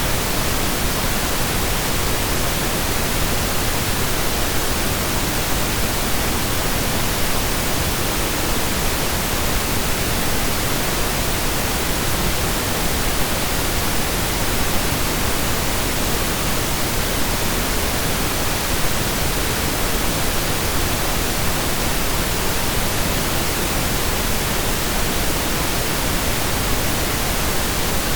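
Steady synthesized pink noise: an even, unchanging hiss with equal energy per octave.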